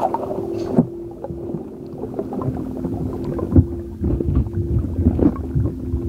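Close-up wet squelching and sticky clicking from something soft and slimy being squeezed and handled by the microphone, getting denser and louder about two-thirds of the way in. A steady low hum runs underneath.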